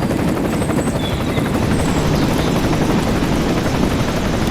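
A small motor whirring steadily with a fast, even flutter.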